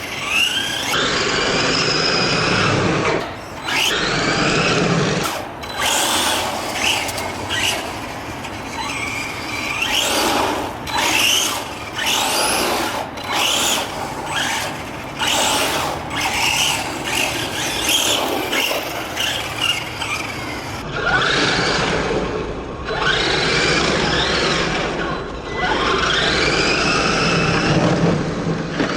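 Electric motor of a Helion Select Four 10SC RC short-course truck whining as it is throttled up and down again and again. Each burst is a rising whine that levels off, with scrabbling noise in between.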